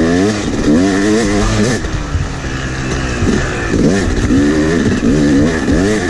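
Yamaha YZ250X two-stroke single-cylinder dirt bike engine ridden on and off the throttle, its pitch repeatedly swinging up and dropping back.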